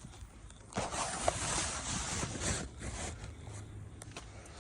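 Metal scraping and rattling as a hydraulic cylinder's gland nut is spun out of the barrel. It is loudest for about two seconds starting about a second in, then drops to lighter clicks and scrapes.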